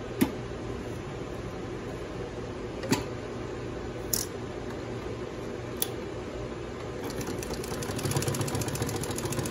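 Mitsubishi double-needle split-needle-bar industrial sewing machine: a steady hum with a few sharp clicks, then from about seven seconds in a fast, even run of stitching.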